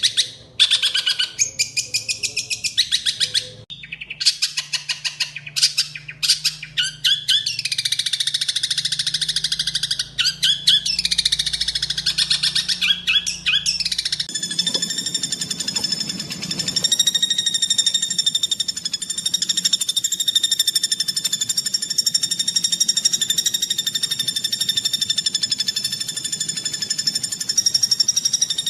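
Green leafbird (cucak ijo) song: rapid, harsh bursts of quickly repeated high notes, then from about halfway a steady held note that runs on unbroken.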